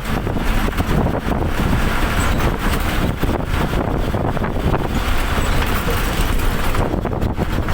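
Steady rushing noise of a moving vehicle, with wind buffeting the microphone.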